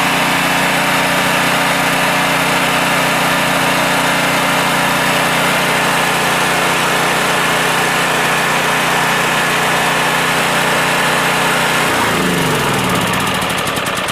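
Champion 9000/7000-watt generator's 439cc single-cylinder engine running steadily, then shutting off about twelve seconds in, its pitch falling as it winds down.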